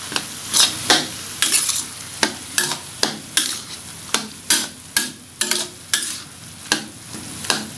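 Spatula scraping and knocking against a steel wok about twice a second, stirring ground beef and tomato paste that sizzle steadily in the pan.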